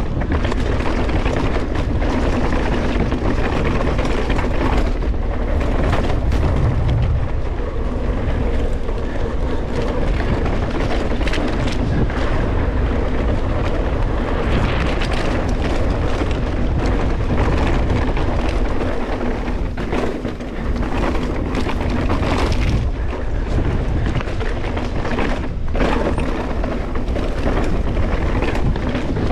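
Mountain bike riding fast down a dirt trail: wind rumbles on the microphone over the hiss of the tyres on dirt, with frequent short knocks and rattles from the bike going over bumps.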